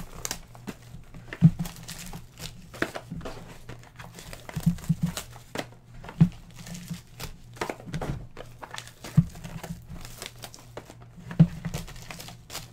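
Trading-card boxes being handled and opened: plastic wrap crinkling and cardboard rustling and scraping, with a few sharp taps as the boxes are set down or knocked.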